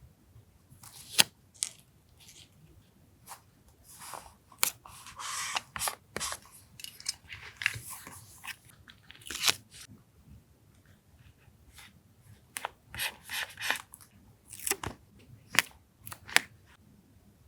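Paper crafting at a desk: scissors snipping paper, with rustling, sliding and tearing of paper and stickers in between. Irregular sharp snips and ticks, separated by short stretches of paper rustle.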